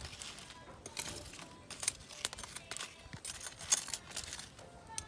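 Beef grilling on a wire rack over embers: fat sizzling with irregular crackles, and sharper pops about two seconds in and past three and a half seconds.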